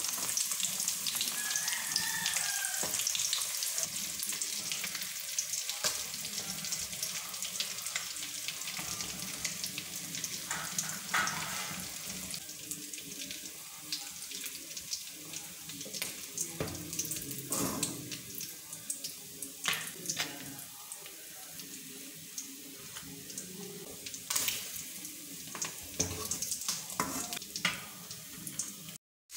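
Indian mackerel pieces shallow-frying in oil in a kadai: a steady sizzle that grows quieter in the second half. A metal slotted spoon clicks and scrapes against the pan now and then as the fish is turned and lifted out.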